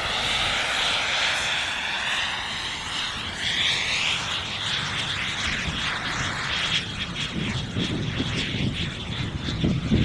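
JetCat P20SX miniature kerosene turbine in a foam RC jet, whining as the plane flies past, with a falling, sweeping tone in the first few seconds as it moves away. Gusty wind buffets the microphone in the second half.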